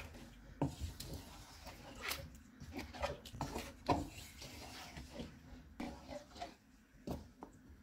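Wooden spatula stirring chicken pieces in yogurt in a karahi (wok), with irregular scrapes and knocks of the spatula against the pan, several a second.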